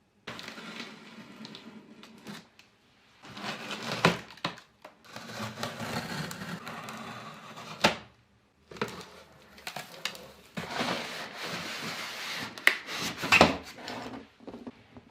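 Hands handling PC components and their packaging: stretches of rubbing and rustling broken by brief pauses, with several sharp clicks and knocks, the loudest near the end.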